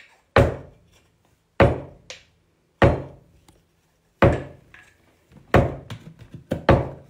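A hammer knocking nails into wood. There are about eight sharp blows: the first few come a little over a second apart, then they come quicker near the end. Each blow rings briefly.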